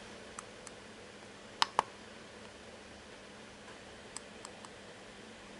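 Small sharp button clicks: two faint ones, then a louder quick pair about a second and a half in, and three faint ones near the end, as the controls are worked to select a different output frequency on the signal generator.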